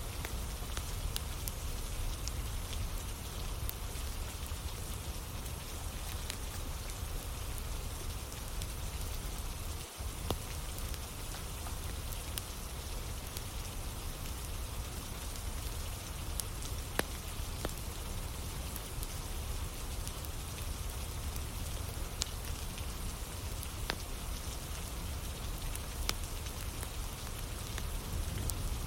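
Steady rain pattering down, mixed with a wood fire burning and giving off scattered sharp crackles and pops. The sound drops out very briefly about ten seconds in.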